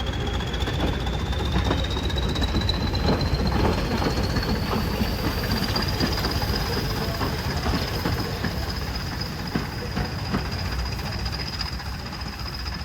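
Class 20 diesel locomotive's English Electric engine running under power, its turbocharger whistle climbing in pitch over the first half and then holding steady above a low rumble. Irregular clicks and knocks come through over the engine.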